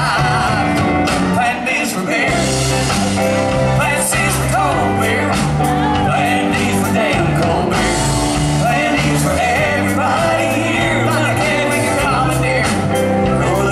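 Live rock band playing: a man singing lead into a microphone over drums and steady bass notes.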